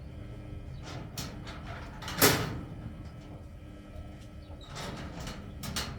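Scattered clicks and knocks of hard parts being handled, with one sharp loud knock about two seconds in and a cluster of clicks near the end, over a faint steady hum.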